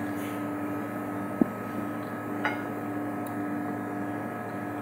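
Steady electrical hum of commercial kitchen equipment, with two light clicks of cutlery against a plate about one and a half and two and a half seconds in.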